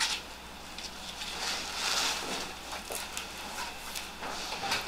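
Soft rustling and scuffing of an ankle-foot orthosis brace and a sneaker being handled and slid off a foot, in a few brief, quiet bursts.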